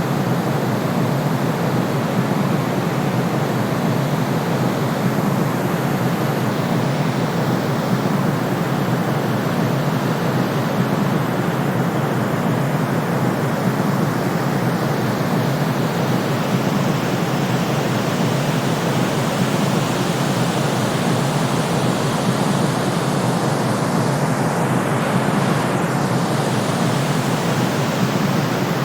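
Steady, unchanging white noise, heavier in the low and middle range than in the highs, like a deep hiss or shushing.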